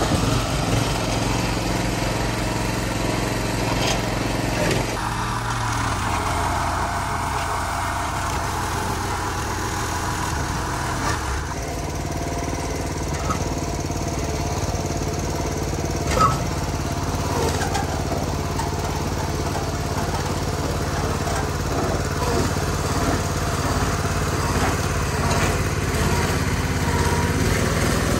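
Small engine of a pipe-rail crop-clearing machine running steadily as it winds up spent tomato plants, its tone shifting a couple of times.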